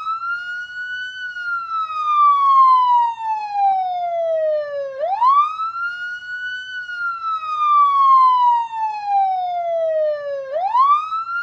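Police siren sounding in a slow wail: the pitch climbs quickly, holds briefly, then falls slowly over about four seconds, and the cycle repeats about every five and a half seconds. It climbs again about five seconds in and near the end.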